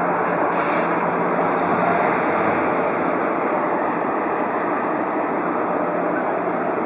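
EF66 electric locomotive running slowly with a steady, even mechanical noise and a low hum. A short high hiss comes about half a second in.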